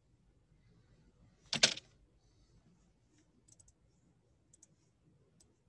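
Scattered clicks of a computer mouse and keyboard, with one short, louder burst of noise about a second and a half in.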